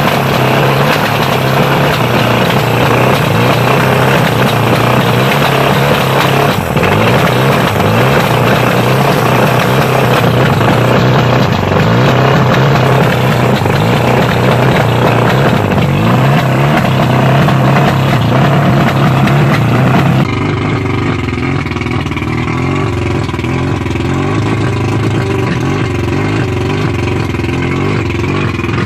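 1989 Mercury 100 two-stroke outboard engine idling fast and steadily, at roughly 1200–1400 rpm. The sound becomes a little quieter and duller about twenty seconds in.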